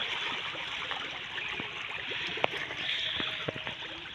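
A mass of pangasius catfish churning and splashing at the surface of a pond: a steady rush of water with scattered sharp splashes, one louder splash about two and a half seconds in.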